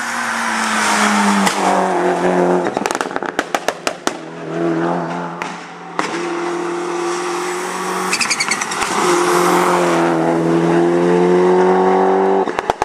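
Turbocharged four-cylinder Mitsubishi Lancer Evolution rally car engine at full throttle up a hill climb, its pitch rising and breaking several times through gear changes. Bursts of sharp crackles come from the exhaust on the lifts about three to four seconds in. A brief high squeal sounds about eight seconds in.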